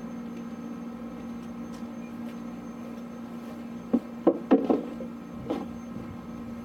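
Hollow plastic car ramps knocking against each other as one FloTool Rhino Ramp is set down and stacked onto the other. There is a quick run of four or five knocks about four seconds in and one more a second later, over a steady low hum.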